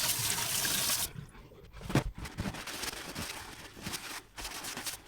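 Water running from a tap, shut off about a second in, followed by scattered light knocks and handling sounds, with one sharp knock about two seconds in.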